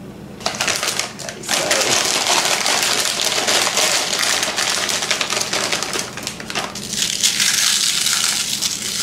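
Plastic bag of pork rinds crinkling and rustling as a hand digs into it, then crisp pork rinds crackling as they are crushed by hand into a bowl, near the end.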